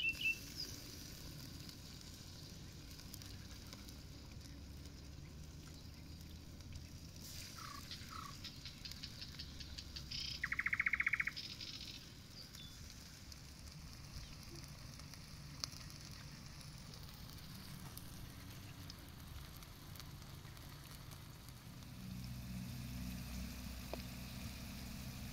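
Outdoor ambience with birds calling: a few chirps, then about ten seconds in a loud, rapid trill lasting about a second, over a faint low rumble that grows louder near the end.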